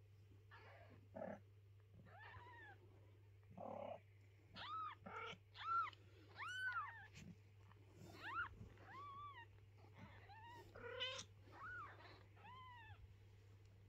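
Newborn kittens mewing: a dozen or so short, high-pitched cries, each rising and falling in pitch, coming in quick runs and loudest around the middle. They are the thin distress cries of tiny kittens, one of them being lifted away from its mother.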